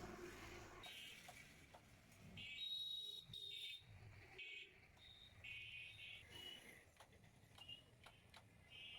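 Near silence, with faint high chirps from small birds coming in short patches, and a few faint clicks.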